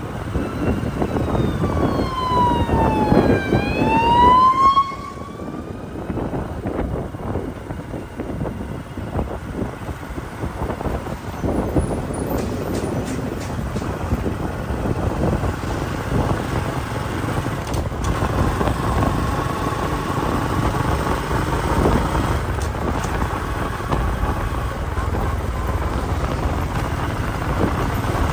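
A loud wailing tone that slides down in pitch and then back up over the first few seconds, like a siren, followed by a steady rumbling noise of wind and passing engines.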